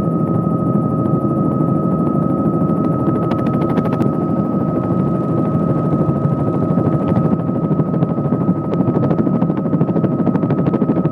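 Helicopter in flight heard from inside the cabin: a loud, steady, rapid beat of the rotor blades over a dense low roar, with a constant high whine running through it.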